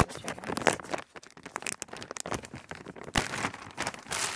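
Plastic pouch of grilled chicken breast strips rustling and crinkling as it is handled and chicken is taken out of it, with one sharp click a little after three seconds in.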